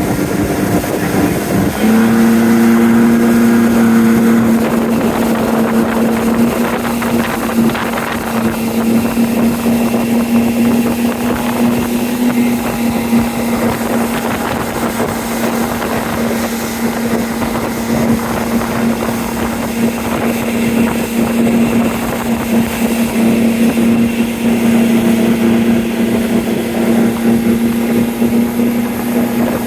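Boat motor running steadily under way, with wind buffeting the microphone. The engine note comes in about two seconds in and then holds steady.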